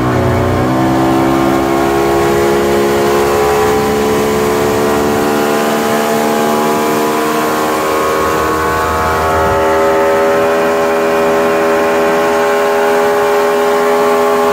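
Remanufactured 175 HP Evinrude V6 two-stroke outboard running at high speed with the boat on plane. It finishes a climb in pitch in the first second, then holds a steady note, over the hiss of wind and water. The motor has just been raised two holes on the transom after being mounted too low.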